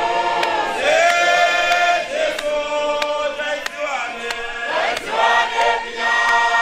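Group of men singing a Shona hymn together through a PA system, holding long notes that glide from one pitch to the next, over a steady beat of sharp clicks.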